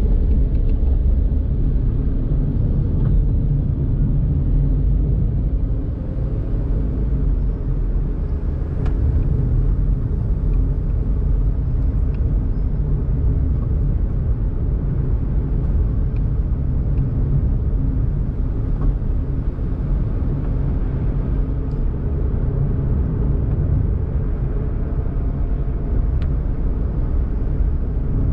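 Onboard driving sound of a Daihatsu Mira Tocot kei car with its 658 cc three-cylinder engine: a steady low rumble of engine and tyre noise on the road, with now and then a faint tick.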